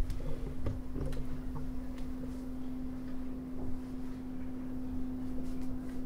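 A steady hum at one unchanging pitch, with a few faint clicks and rustles.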